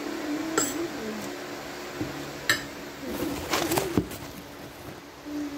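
Eating utensils clicking against dishes at a meal: three sharp clicks, the last two loudest. Under them a low, wavering hum-like voice comes and goes, strongest between about three and four seconds in.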